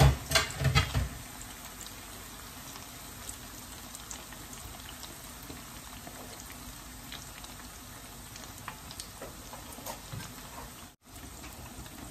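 Starch-coated salmon pieces frying in hot oil in a pan over low heat, a steady bubbling sizzle with scattered small pops. There is a brief louder sound in the first second, and the sound drops out for a moment near the end.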